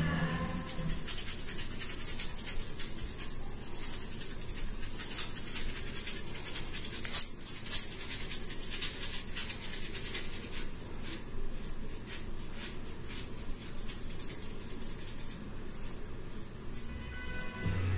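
Paintbrush scrubbing and dabbing wet acrylic paint onto a canvas, a dense run of quick scratchy strokes, with two louder strokes about seven and eight seconds in.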